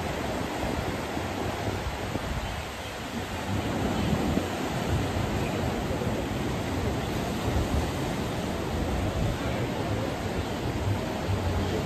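Sea waves breaking and churning over a rocky volcanic shore, a steady rush of surf, with some wind buffeting the microphone.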